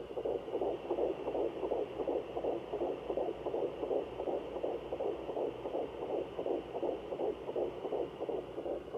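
Fetal heartbeat through the speaker of a Sonoline B handheld fetal Doppler: fast, even pulses, about two to three a second, over a faint steady hiss.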